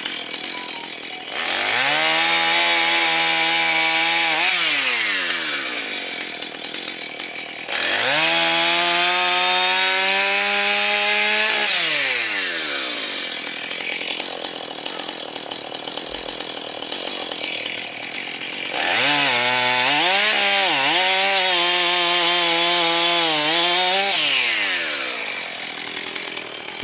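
Husqvarna chainsaw with a 16-inch bar revved to full throttle three times, each held for a few seconds while cutting through wood, then dropping back to idle between cuts. The third cut has a brief dip in engine speed partway through.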